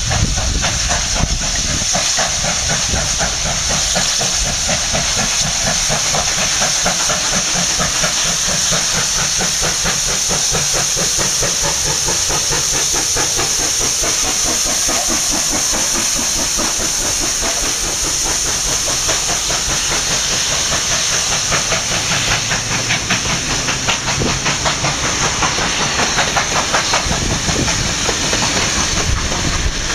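Steam locomotive 3801, a C38 class 4-6-2 Pacific, passing at speed with its train of carriages: a loud, steady hiss of steam over a rapid, even rhythm as the engine and then the carriages roll by.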